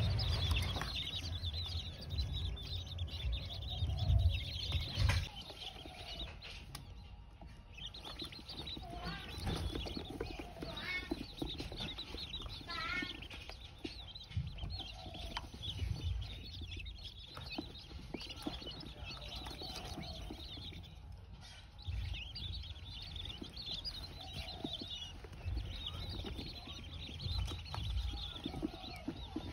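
A flock of young blue-breasted quail (king quail) feeding, with frequent short high peeps and chirps and a few gliding calls, over light pecking and scratching in the bedding. Low bumps come in the first few seconds.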